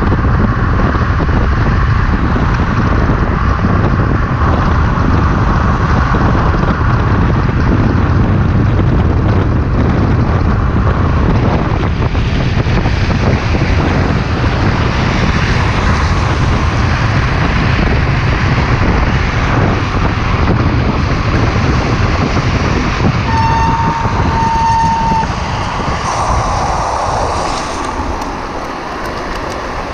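Wind buffeting the microphone over the rumble of a drift trike's wheels rolling fast downhill on asphalt. About three-quarters of the way through, a steady high tone sounds for about two seconds. The noise eases somewhat near the end.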